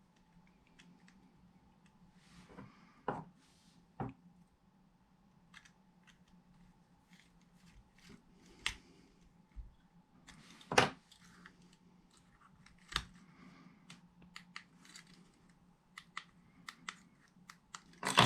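Scattered sharp plastic clicks and taps of a small remote control being handled, its battery cover fitted and buttons pressed, over a faint steady hum.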